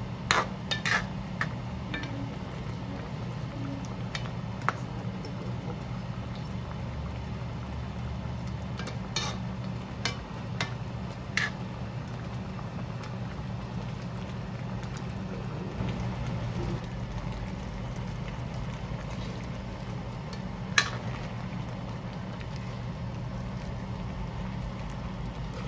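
A metal spoon stirs shrimp simmering in coconut milk in a metal wok, clinking against the pan now and then: a few clinks at the start, a handful about 9 to 11 seconds in, and one sharp one near 21 seconds. A steady low hum runs underneath.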